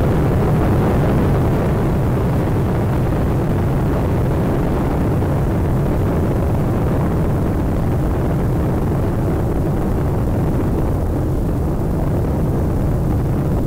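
Steady low rumble of Space Shuttle Atlantis's rocket exhaust during ascent, with the twin solid rocket boosters and three main engines firing as the vehicle nears maximum dynamic pressure.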